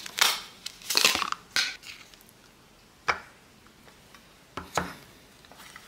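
Sour cream being spooned from its tub onto tacos. There are a few short scraping handling noises in the first two seconds, a sharp click about three seconds in, and two more scrapes close together toward the end.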